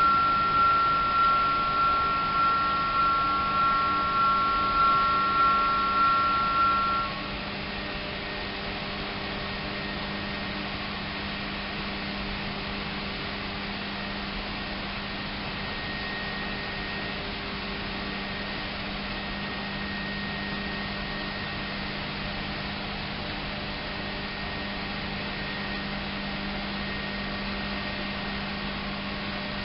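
Level-crossing warning bell ringing in quick strokes, about two a second, as the barriers lower to warn of an approaching train; it stops about seven seconds in. A steady low machinery hum with hiss remains after it.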